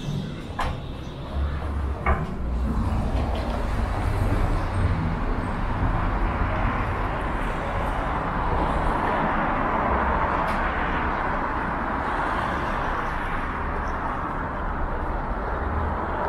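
Two knocks from the metro station's swinging glass exit doors, then steady street traffic: cars driving past on a wide city avenue, with a constant hiss of tyres and engines.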